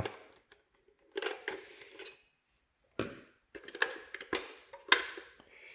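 Hard plastic clicks, knocks and scraping as the plastic wheels of a toy ghost trap are handled and taken off, in a series of short irregular clicks with the sharpest near the end.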